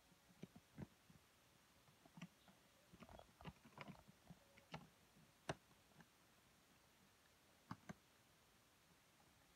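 Near silence with scattered faint clicks and taps, most of them between about three and six seconds in, the sharpest one about halfway through, and a last pair near the end.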